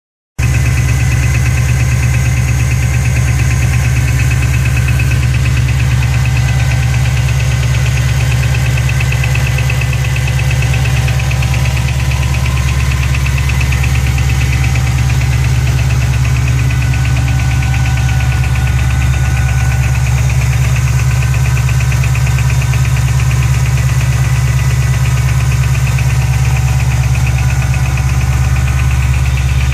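Ford Shelby GT500's V8 engine running steadily on a cold start, with a fast, even ticking over the engine note.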